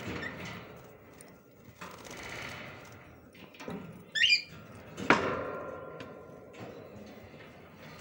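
Lovebird bathing in a clay water pot, splashing and fluttering its wings. A short sharp chirp comes just after four seconds in, then a sharp knock with a brief ringing tail about a second later.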